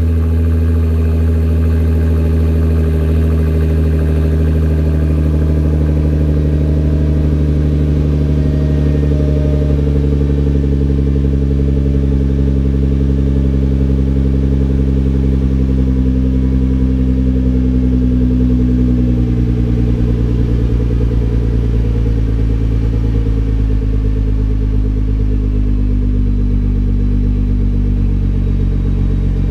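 A Nissan GT-R R35's twin-turbo V6 idling steadily through a GTC Titan 4-inch exhaust with non-resonated mid pipe and downpipes, a deep even drone heard from behind the car.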